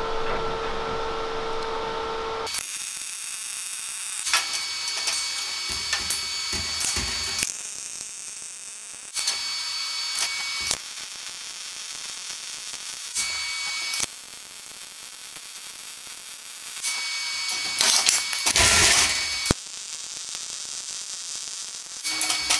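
Power tool work heard as a string of short clips that cut off abruptly every second or few, several of them carrying a steady high whine.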